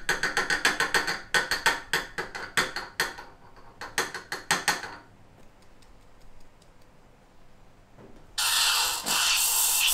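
Rapid mechanical clicking, about five or six clicks a second, for the first five seconds. After a short lull, the steam wand of a De'Longhi espresso machine starts hissing loudly, in short spurts, near the end.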